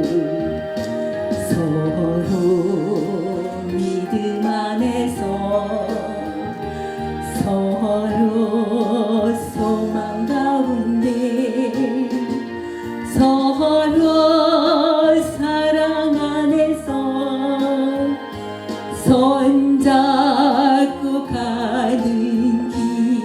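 A hymn sung with vibrato over instrumental accompaniment.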